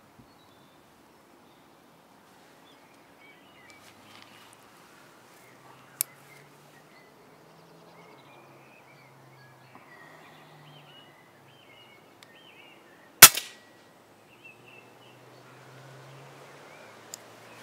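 A single shot from an FX Impact MkII pre-charged pneumatic air rifle, a sharp crack about thirteen seconds in with a smaller knock right after it. There is one fainter click about six seconds in, and small birds chirp in the background.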